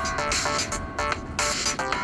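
Samsung Galaxy A03 ringtone playing: an electronic tune of stepping synth notes over a steady beat of sharp percussive hits.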